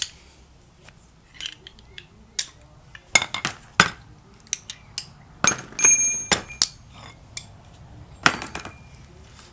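Metal spark plug sockets clinking and clattering as they are handled, a series of sharp irregular clicks, a few of them with a brief metallic ring.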